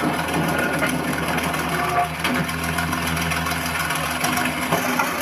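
Electronic sound module of a 1/16 Jagdtiger RC tank playing a simulated tank engine idle through the model's small speaker, a steady low hum with some rattle.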